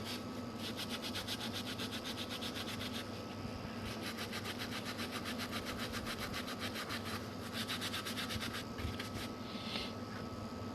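Rapid back-and-forth scrubbing on a graphics card's circuit board, cleaning dust and rust from around the GPU chip with WD-40. The scrubbing comes in runs with brief pauses, over a faint steady hum.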